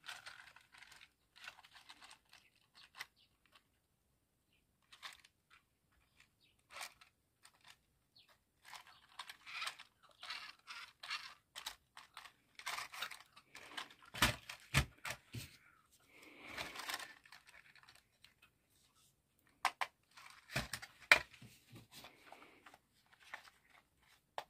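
Handling noises from a plastic toy RC car being turned over and worked by hand on a plastic tarp: scattered clicks and crinkling rustle, with a cluster of sharp plastic knocks about halfway through and another a few seconds later.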